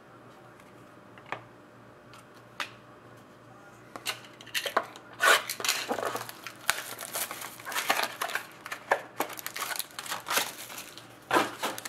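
Two light clicks, then a trading-card pack's wrapper being torn open and crinkled in the hands with dense, irregular crackling for the last several seconds.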